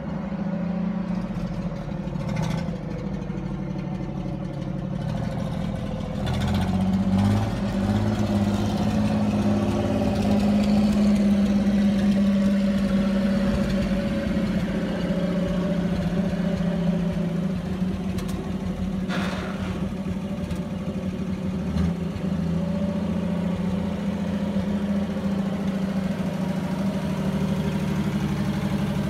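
1957 Willys 4x4 truck's engine running as the truck drives around, growing louder about a third of the way in as it comes past close by, then running steadily.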